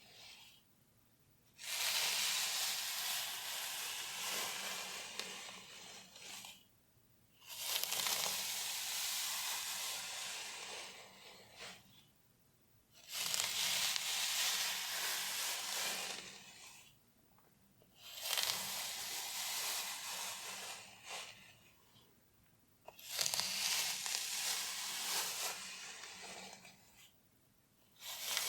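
Hair and scalp scratched close to a microphone: a rustling scratch that comes in five strokes of three to five seconds each, with about a second's pause between them.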